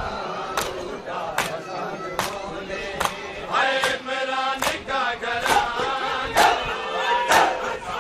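Crowd of men chanting a mourning lament in chorus, with rhythmic group chest-beating (matam): a sharp slap of many hands on bare chests a little more often than once a second.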